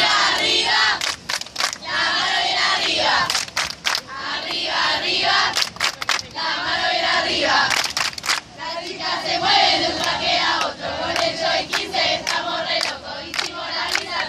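A group of young voices chanting and cheering together, with short sharp sounds cutting through many times.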